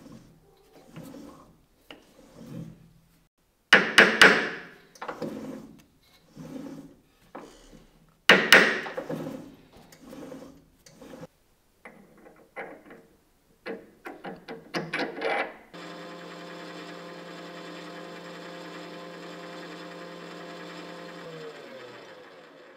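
Brass hammer tapping a workpiece in a four-jaw lathe chuck to true it up: a run of light taps with two harder strikes about 4 and 8 seconds in. About 16 seconds in the metal lathe starts and runs with a steady hum, then winds down in pitch near the end.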